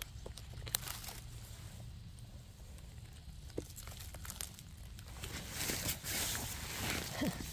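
Dry leaves and twigs on the forest floor rustling and crackling as mushrooms are picked, with scattered small snaps and a denser patch of rustling about five seconds in.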